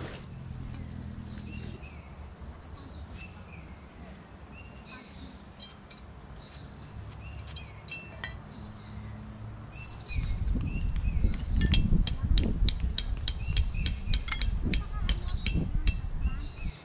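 Small birds chirping and calling throughout, over a low hum. About ten seconds in, a loud low rumble sets in, joined by a rapid run of sharp clicks, several a second, until the sound cuts off abruptly.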